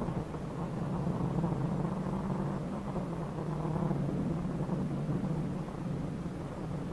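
Rally car's engine running hard on a gravel stage, heard from inside the cockpit along with road and tyre noise. The engine note holds fairly steady, dipping slightly about halfway through and coming back up, as the driver works the gear lever.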